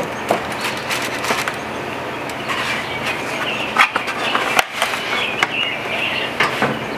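Scattered light clicks and clacks of metal tongs and a foam clamshell takeout box being handled, over a steady background hiss. The sharpest knocks come about four seconds in.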